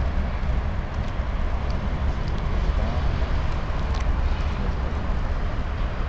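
Steady outdoor background noise dominated by a low rumble, with distant city traffic.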